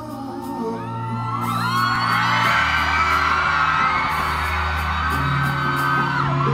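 Live pop concert music through the PA, with deep held bass notes and a steady beat, and a crowd of fans screaming that builds up from about a second and a half in.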